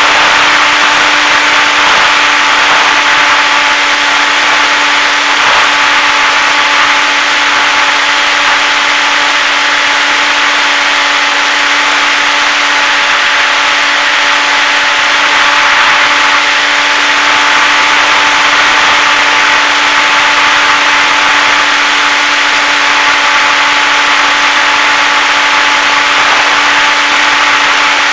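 HobbyZone Super Cub RC plane's electric motor and propeller at constant throttle, heard from the plane's onboard camera: a steady drone that holds one pitch under a loud rushing of air.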